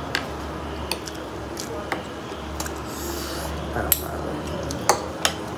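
Metal fork and spoon clinking and scraping on ceramic plates while eating, a scatter of sharp clinks with two louder ones in the second half, over a steady low hum.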